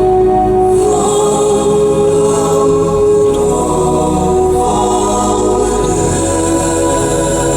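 Choral music with sustained, slowly changing chords.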